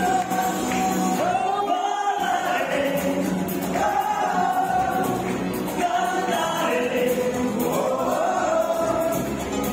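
Music with several voices singing a melody together, the singing carrying on without a break.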